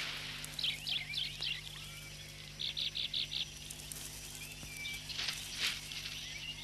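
Rainforest birds calling: a quick run of high chirps about half a second in, five short evenly spaced notes around three seconds, and two sharp calls near the end.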